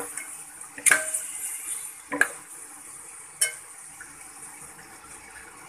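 Chicken pieces sizzling in hot oil in a large metal pot, with a steel spoon knocking against the pot three times in the first three and a half seconds as it stirs.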